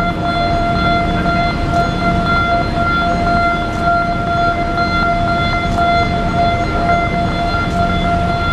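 A steady high-pitched tone holding one pitch, with a brief dropout or two, over an uneven low rumble.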